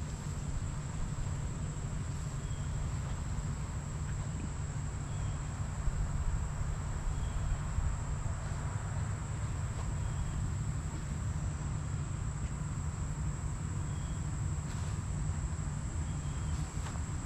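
Steady high-pitched insect drone, typical of summer crickets, with a short faint chirp every two to three seconds. A low rumble runs underneath.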